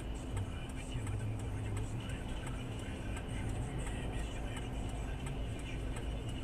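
Steady car engine and road noise, heard from inside the vehicle, with light ticks.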